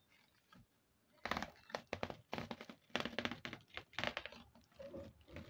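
Bulk bag of dry nakumat clay chunks being opened and handled: a run of rapid, irregular clicks and crackles that starts about a second in and keeps on until near the end.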